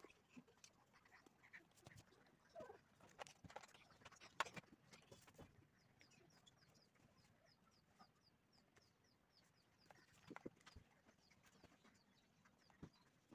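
Near silence: faint room sound with scattered soft clicks and taps. A faint run of rapid high chirps, about four a second, runs from about six to ten seconds in.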